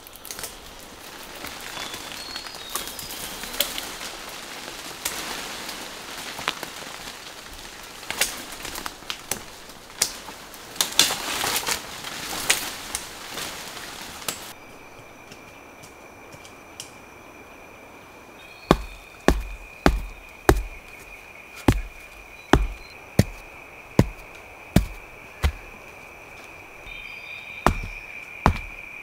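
Leaves rustling and branches and vines snapping as undergrowth is pulled down, through the first half. Then an insect's steady high drone sets in, and a run of about a dozen dull chopping strikes comes roughly two a second, with two more near the end.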